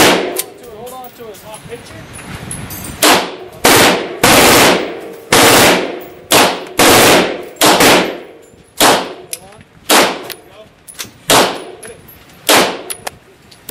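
Beretta M9 9mm pistol fired one shot at a time on an indoor range, about fifteen shots. They start after a pause of about three seconds and come roughly one every half second to a second, each with a short echo trailing off.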